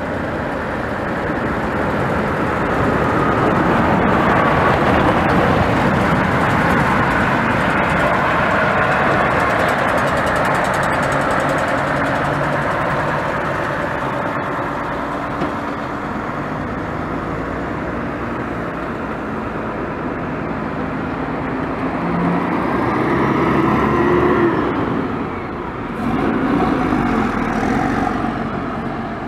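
A heavily loaded cargo truck and a DLTB Co. intercity coach pass close by, with diesel engines and tyres on the road. The truck goes by first and is loudest in the first half. Later the coach's engine note climbs in pitch as it passes and pulls away.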